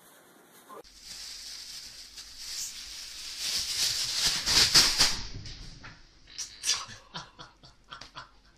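Thin plastic bag rustling and crinkling as a cat moves about inside it, starting about a second in and growing louder, then breaking into a run of short sharp crackles near the end.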